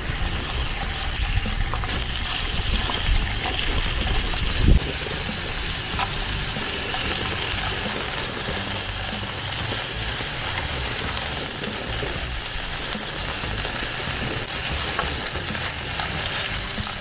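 Thin beef slices sizzling on a hot grill pan as chopsticks turn them, with a few light clicks of the chopsticks on the pan. Wind rumbles on the microphone for the first few seconds, ending in a loud bump about five seconds in.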